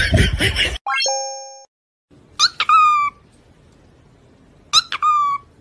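A short rising 'bloop' sound effect, then a French bulldog whining twice, each cry a sharp rising yelp that settles into a held, slightly falling whine.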